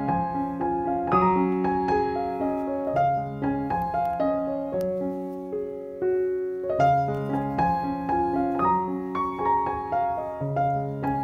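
Background piano music: a gentle, unhurried melody of notes and chords that ring and fade.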